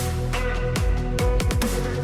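Background electronic dance music with heavy bass and sharp drum hits.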